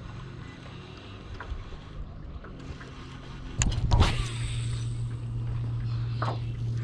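A steady low mechanical hum, louder from about three and a half seconds in, with a short, sharp rush of noise at the moment of an overhead cast with a baitcasting rod, about four seconds in.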